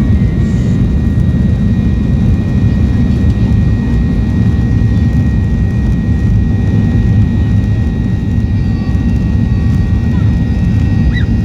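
Steady jet-engine noise heard inside the cabin of a Boeing 737-800 with CFM56 turbofans: a loud, even low rumble with a faint steady whine above it.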